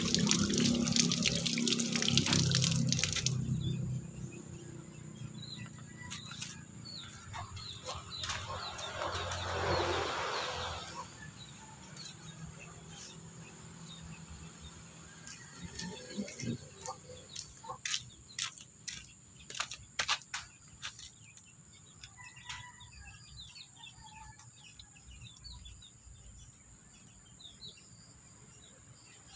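Water splashing and pouring onto wet concrete as a stone is rinsed, stopping about three to four seconds in. After that, birds chirp faintly in the background, with a brief swell of splashing around ten seconds and a run of sharp clicks and taps a few seconds later.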